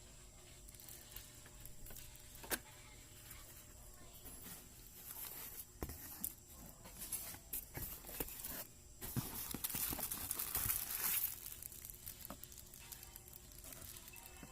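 Packaging being handled and opened by hand: scattered clicks and taps, with a louder stretch of rustling and crinkling about nine to eleven seconds in.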